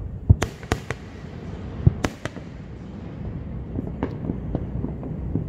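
Aerial fireworks display: a quick run of sharp shell bursts in the first two seconds or so, then a few fainter scattered pops over a continuous low rumble.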